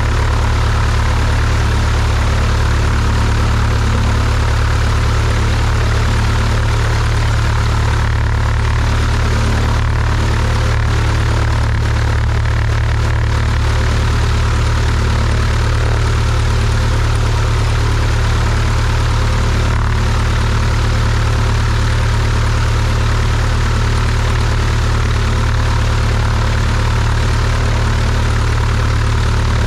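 Cessna 172's piston engine and propeller running steadily at low power while the plane taxis, a constant low drone.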